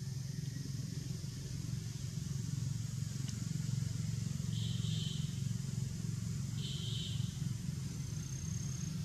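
Outdoor background: a steady low rumble throughout, with two short high buzzes about four and a half and six and a half seconds in, and a brief thin whistle near the end.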